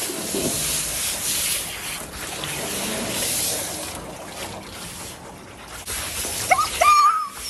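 Water hissing from a hose spray nozzle held close against a wet Siberian husky's thick coat as she is rinsed. Near the end comes a short, higher whining sound, the loudest moment.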